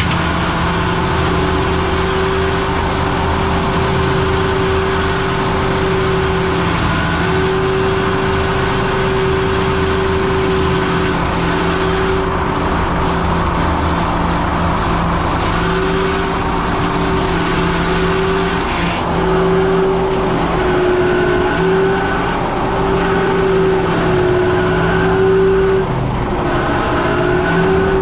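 Caterpillar 289D3 skid steer running steadily at working speed with its brush cutter mower attachment, a high steady whine over the engine that dips slightly in pitch a few times in the second half.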